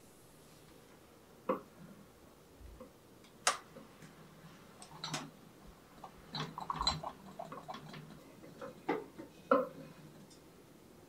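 Scattered knocks and clinks as a small wooden storage-box cart loaded with a ceramic teapot, cups and coffee tools is handled and moved. Single sharp knocks come about a second and a half in and again near three and a half seconds, a cluster of rattling clatter follows around the middle, and a couple more knocks come near the end.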